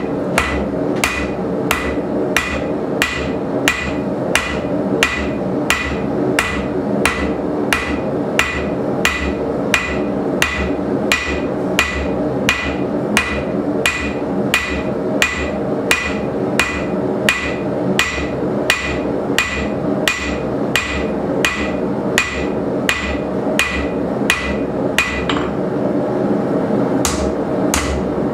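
Hand hammer striking red-hot coil-spring steel on an anvil in an even rhythm of about two ringing blows a second, tapering one side of a narrow punch, with a brief pause near the end. A steady hum runs underneath.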